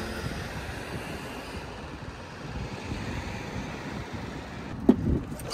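Steady background noise, an even hum and hiss of the kind heard from traffic or a vehicle, with a brief louder sound near the end.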